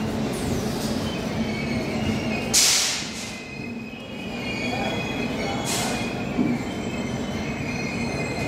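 Passenger coaches of an Indian Railways express train rolling past on the rails, with a steady wheel rumble and faint high-pitched wheel squeal. Two short, loud rushing bursts come about two and a half and six seconds in.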